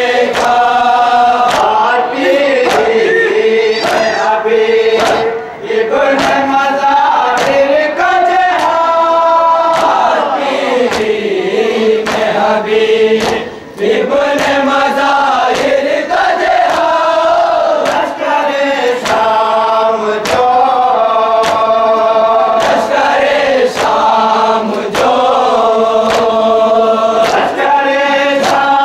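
A group of men chanting a Shia noha (mourning lament) together, led by a singer, over a steady beat of sharp hand slaps from matam, the ritual chest-beating.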